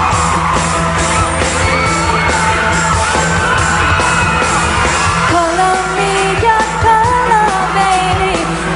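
Live pop music: a female singer holding long, belted notes over a band with a steady beat.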